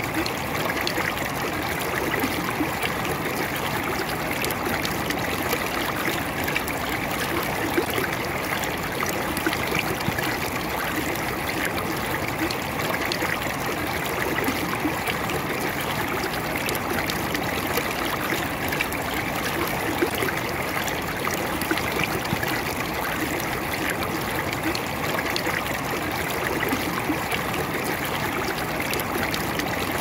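Shallow mountain stream rushing steadily over a rocky bed, a constant splashing rush of water.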